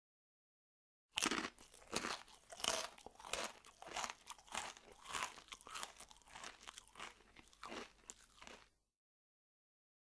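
Someone biting and chewing hard candy: a run of irregular loud crunches, several a second, starting about a second in and stopping near the end, the sound of eating through candy canes.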